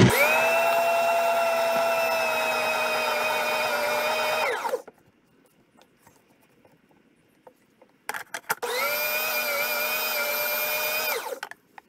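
Food processor motor running with its dough blade mixing flour into sourdough dough, a steady whine for about four and a half seconds before it stops. After a pause with a few light clicks, it runs again for about two and a half seconds and stops.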